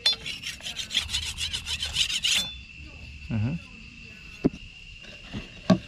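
Machete blade being sharpened on a flat stone: rapid rasping strokes of steel on stone for about two and a half seconds, then it stops, with a few light knocks later on.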